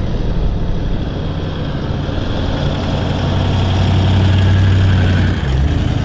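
An engine running steadily with a low hum, growing a little louder and then dropping back about five seconds in.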